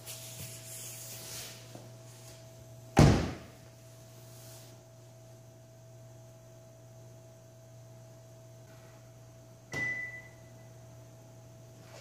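A Kia K9 car door is shut with a loud thunk about three seconds in. Near the end comes a second, quieter clunk with a short high beep, as the doors lock automatically after all doors are closed.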